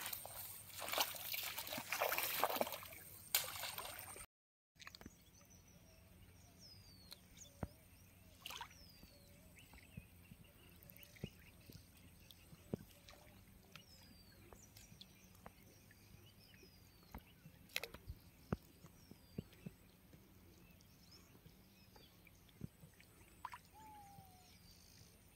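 Footsteps splashing and rustling through wet marsh grass and shallow water for about four seconds. After a short break, quiet open-air stillness with scattered faint clicks and a few short, high, falling bird chirps.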